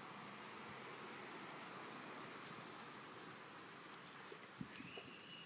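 Faint steady high insect drone, with a couple of short, very high chirps and a brief thin whistle-like call near the end.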